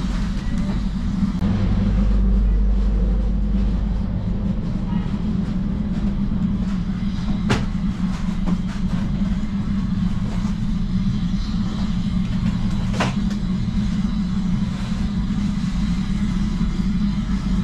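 A steady low mechanical drone, with two sharp clicks, one about seven and a half seconds in and one about thirteen seconds in.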